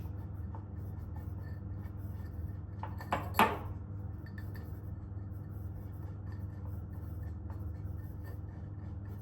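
A metal spoon rubbing and clinking against a cup, crushing matcha powder, with two short clinks a little after three seconds in, over a steady low hum.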